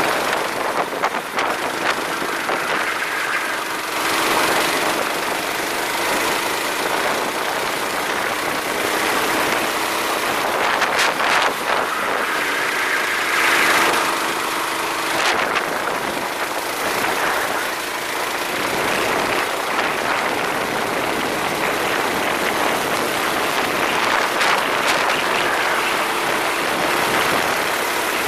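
Racing kart heard from onboard, its motor pitch rising and falling through the corners under a steady rush of wind on the microphone.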